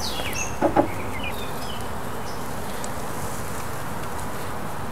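A mass of honeybees buzzing steadily around an opened nuc hive as its frames are lifted out. There are two quick knocks a little under a second in.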